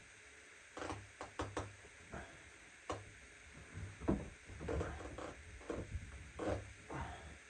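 Irregular knocks, clicks and clunks of parts being handled and fitted while installing a shower valve.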